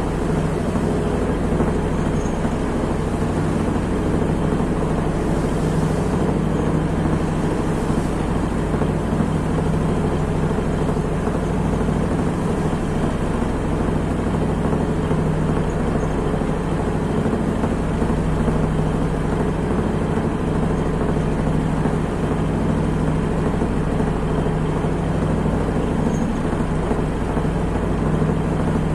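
A ship's engine running steadily, a constant low drone with a steady hum and no change in speed.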